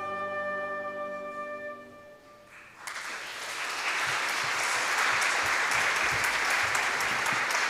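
The final held chord of a choir song with accompaniment fades out, then an audience bursts into applause about three seconds in and keeps clapping.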